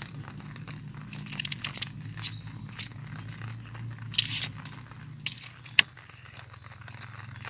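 Kitchen knife peeling and cutting a red onion on a wooden stump chopping board: crackly scraping of the dry onion skin, with one sharp tap of the blade on the wood late on.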